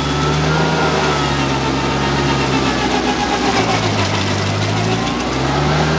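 Compact tractor engine driving a PTO stump grinder, its cutter wheel chewing into a stump. The engine note drops about three and a half seconds in as the wheel bites, then climbs back near the end.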